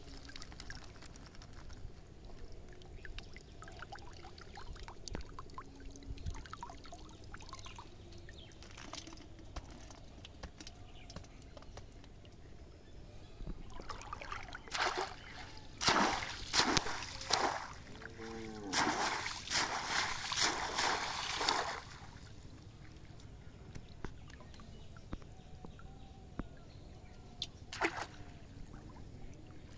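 Shallow water sloshing and splashing as someone wades through it and moves a bamboo fish trap. There is a run of loud splashes a little past halfway through, and a single sharp knock near the end.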